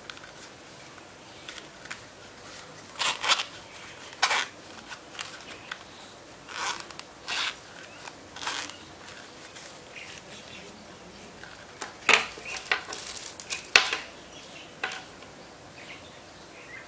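Zipper on a small zippered earphone carrying case being worked by hand in short, irregular raspy pulls, with clicks and rustles as the case and the earbud cable are handled.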